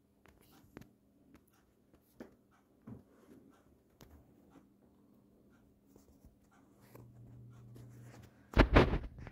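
Quiet room with faint scattered rustles and soft clicks, then a loud, brief thump and rustle near the end.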